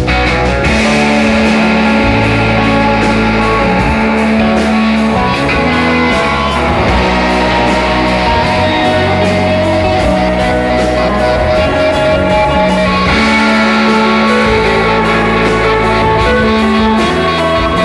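Rock band playing live: electric guitars over bass guitar and a steady drumbeat, an instrumental passage.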